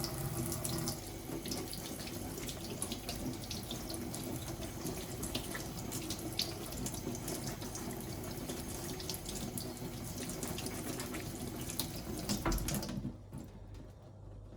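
Kitchen tap running into a sink while tomatoes are rinsed under it, with small splashes from handling them. The water is turned off about a second before the end.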